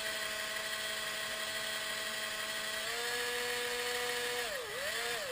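Small battery-operated power drill spinning an empty spool to strip old fishing line off a reel: a steady motor whine that steps up in pitch about three seconds in and briefly sags twice near the end as the speed is eased.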